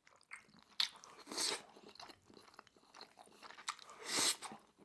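Close-miked eating of udon noodles: soft wet chewing and mouth clicks, with two slurps of the noodles, one about a second and a half in and a louder one near the end.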